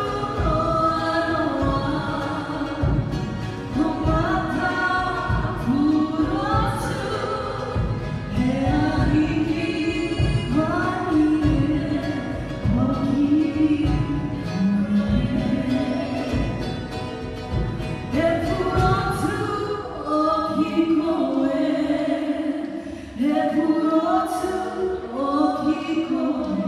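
A group of voices singing together in harmony over a steady low beat, in a Cook Islands song rehearsed for a stage show. The music dips briefly near the end before a new phrase begins.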